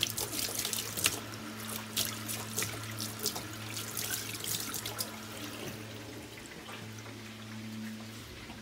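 Water splashing and dripping in a stainless-steel kitchen sink, in quick irregular spatters that thin out after about five seconds. A steady low hum runs underneath.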